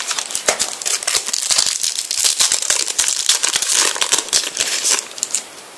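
Foil trading-card packet crinkling and crackling as it is handled in the hands. The crinkling stops about a second before the end.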